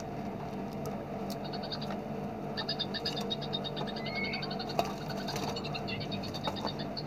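A small songbird giving a rapid trill of high, evenly repeated notes, starting about a second in and running on, over a steady low hum.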